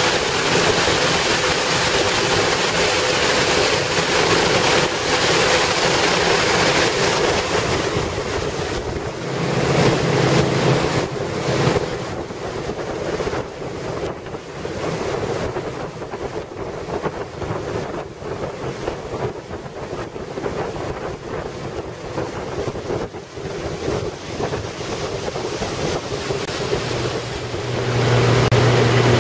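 Motorboat under way at speed: a steady engine drone under rushing water and hull spray, with wind buffeting the microphone. It gets somewhat quieter in the middle, and near the end it grows louder again with a strong low engine hum.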